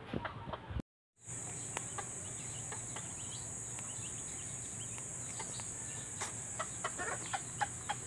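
A few sharp knife taps on a wooden chopping board, then, after a brief cut, a steady high-pitched insect drone with scattered short bird calls and clucks.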